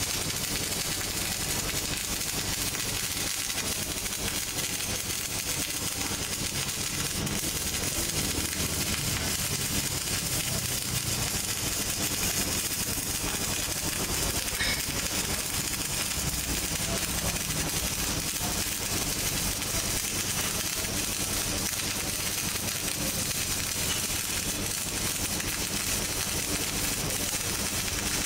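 Electric arc welding on steel plate: the arc crackles and hisses steadily as the bead is laid, with a faint steady hum underneath.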